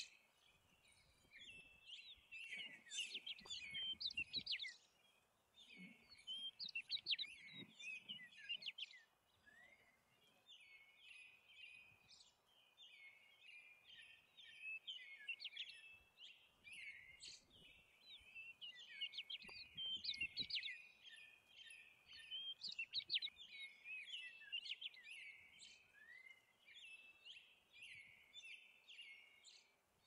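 A dense chorus of small birds chirping and twittering without pause, short high calls overlapping one another. There are louder flurries of calls a few seconds in, around seven seconds and again around twenty seconds.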